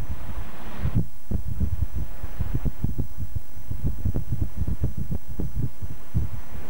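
Wind buffeting the camcorder microphone in irregular low thumps, with two brief rushes of hiss near the start and again about two and a half seconds in.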